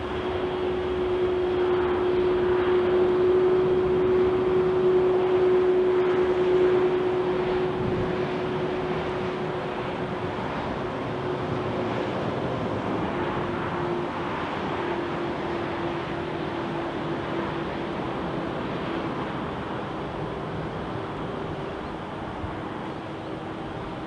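Jet airliner's engines passing: a steady rushing noise with a held humming tone. It is loudest a few seconds in, then fades slowly, and the tone drops slightly about halfway through.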